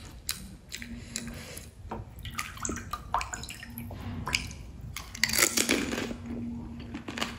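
Close-miked eating of a pani puri: wet splashing and dripping as the puri is dipped into the spiced water, then a loud crunching, slurping bite and chewing of the crisp shell full of liquid, most intense about five to six seconds in.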